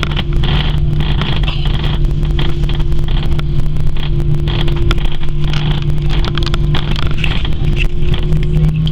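Cabin noise inside an Airbus A340-300: a steady rumble and hum from its CFM56 engines, with many irregular clicks and rattles from the cabin.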